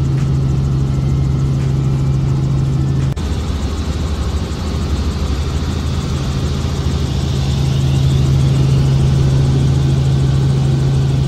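Helicopter in flight heard from inside the cabin: a loud, steady drone of engine and rotor with a constant low hum, briefly changing about three seconds in and then carrying on.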